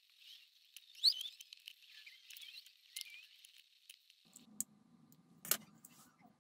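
Faint scratching and small squeaks of a screwdriver turning a small screw into a 3D-printed PLA crankcase, with a click about a second in. Two sharp clicks of the plastic parts being handled come near the end.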